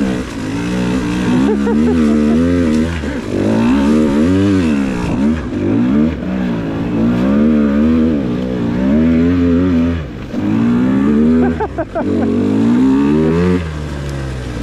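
Single-cylinder two-stroke KTM 150 XC-W dirt bike engine revving up and down over and over as the rider works the throttle on a trail. It cuts back briefly several times before pulling again.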